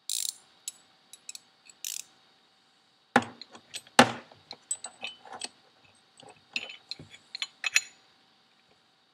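Irregular metallic clicks, clinks and knocks from hand tools working the compressor-wheel shaft nut on a turbocharger's ball-bearing center cartridge, with two louder knocks about three and four seconds in. This is the shaft nut being tightened while the balance marks are lined up.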